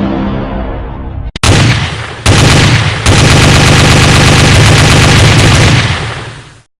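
Sustained rapid automatic gunfire, a long machine-gun burst that starts abruptly about a second and a half in, grows louder in two steps and fades out near the end. It follows a short stretch of music that cuts off suddenly.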